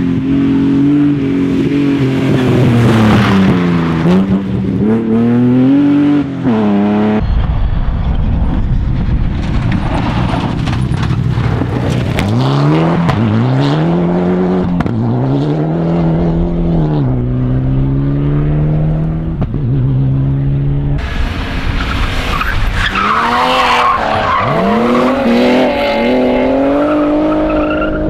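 Rally car engines at full throttle, revving up and dropping again and again through gear changes and lifts as the cars pass. The sound changes abruptly about 7 seconds and about 21 seconds in, where different cars and stages are cut together.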